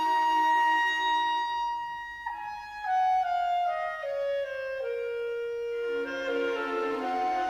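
Solo clarinet in an early-19th-century clarinet concerto, holding a long high note over soft sustained accompaniment for about two seconds. It then plays a descending run of notes, step by step, that turns upward again near the end.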